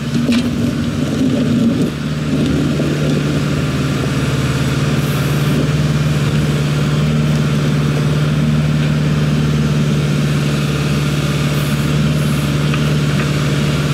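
Diesel engine of a Kubota L48 tractor-loader-backhoe running. It sounds uneven for about the first two seconds, then settles into a steady, even drone.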